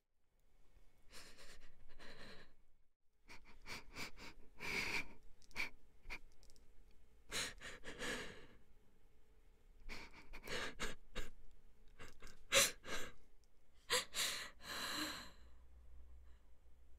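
A girl crying: irregular sobbing breaths, sniffs and shaky gasps that come in fits with short pauses between.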